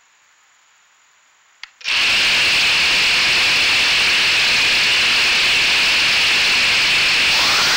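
3-inch FPV quadcopter's brushless motors with tri-blade props: after a click, they spin up sharply about two seconds in and then run at a steady whirring idle on the ground. Near the end the sound brightens and a whine starts to rise in pitch as throttle comes in for takeoff.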